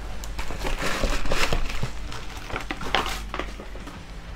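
Food packaging rustling and crinkling as it is handled, with a few light knocks on the counter.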